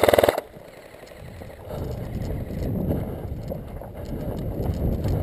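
Airsoft M16-style replica rifle firing a short full-auto burst of rapid, evenly spaced shots that stops about half a second in. Then, from about two seconds in, footsteps on dirt and gravel with a low rumble of wind and movement on the head-mounted camera as the player moves on.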